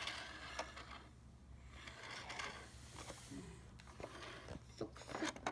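Faint scattered clicks and scrapes of a plastic toy car-carrier truck being handled, more of them near the end, over a low steady hum.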